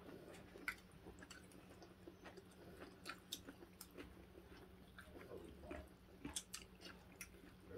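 Faint eating sounds: two people chewing mouthfuls of vermicelli noodles, with scattered light clicks of forks and spoons against ceramic bowls.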